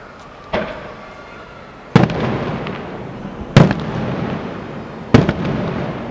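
Aerial firework shells bursting: a lighter bang about half a second in, then three loud bangs about a second and a half apart, each followed by a rolling echo.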